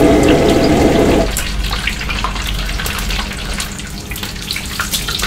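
Battered chicken deep-frying in hot oil in a frying wok, the oil bubbling and crackling steadily: the second, high-temperature fry that crisps the batter. A louder low rushing sound underneath cuts off about a second in.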